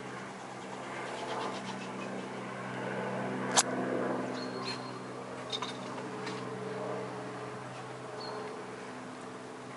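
Light helicopter flying low overhead: a steady low drone of rotor and engine, peaking around three to four seconds in and easing off after. A single sharp click about three and a half seconds in is the loudest moment, and a few brief high chirps come through.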